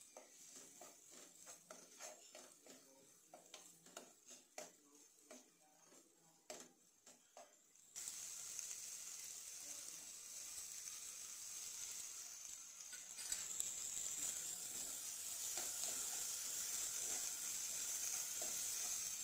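Steel spoon stirring diced vegetables in a nonstick kadai, with irregular clinks and scrapes. About eight seconds in, a steady frying sizzle starts abruptly and grows louder a few seconds later.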